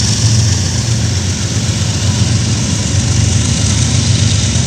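Diesel locomotive engines of a coal train running steadily, a low rumble with a fine even pulse under a steady hiss.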